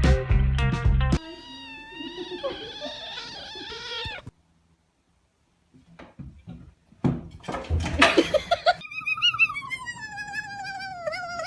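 Cat yowling in long wavering calls, then after a short pause another cat call that slides slowly downward in pitch near the end. A bit of music with a guitar stops about a second in.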